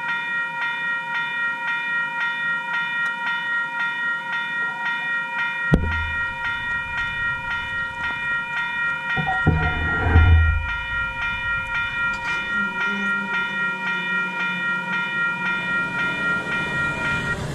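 Level-crossing warning bell ringing: a quick, even run of bright metallic dings that stops just before the end. A single thump about six seconds in and a low rumble around ten seconds sound over it.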